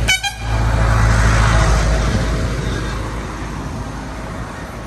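A motor vehicle passing on the road, its noise swelling within the first second and then slowly fading, over a steady low rumble; a brief high-pitched tone sounds at the very start.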